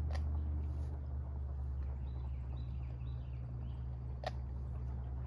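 Outdoor lakeside ambience: a steady low rumble, with a few faint bird chirps in the middle and two sharp clicks, one at the start and one about four seconds in.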